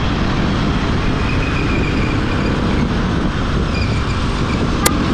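Motorcycle riding in city traffic: steady engine and road noise with wind on the microphone. A single sharp click near the end.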